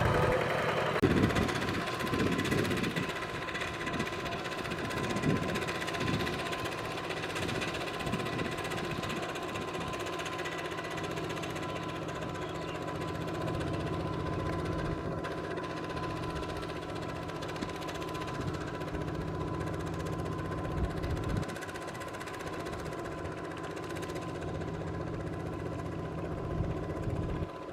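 Miniature Kubota RT120 power tiller running steadily as it ploughs through mud, a constant mechanical hum with a steady high whine, and a few knocks and thumps in the first few seconds.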